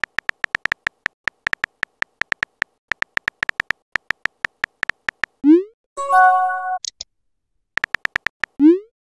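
Texting-app keyboard sound effects: rapid key clicks, several a second, as a message is typed out. About five and a half seconds in, a quick rising blip and a short synthetic chime mark the message being sent. A few more key clicks follow, then another rising blip near the end.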